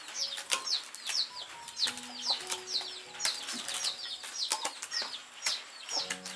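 Large knife blades knocking and cracking irregularly against the hard, woody shells of wood apples as they are chopped open by hand. Short high chirps from birds repeat several times a second behind it.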